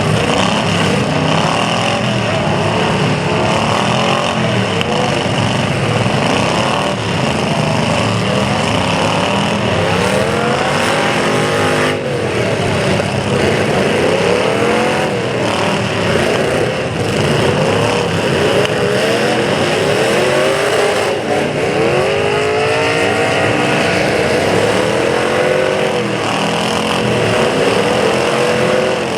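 Several demolition derby cars revving their engines hard, many overlapping engine notes rising and falling again and again.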